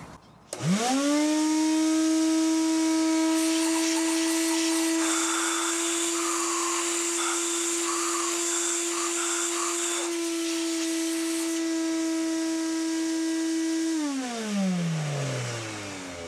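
Shop vac switched on, its motor whining up to speed within about a second and running steadily, with a rougher hiss for a few seconds in the middle while the hose is held at a freshly tapped air injection port drawing out metal shavings. About 14 s in it is switched off and the motor winds down, its pitch falling.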